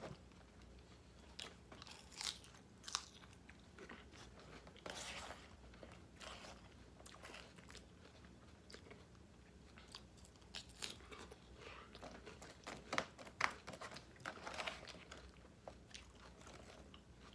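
A person chewing and crunching a salad, with scattered short, crisp crunches.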